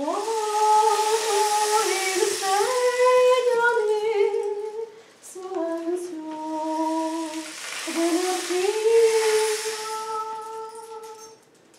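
A woman's voice singing a wordless melody in long held notes. It comes in three phrases, each sliding up into its first note, with short breaks between them.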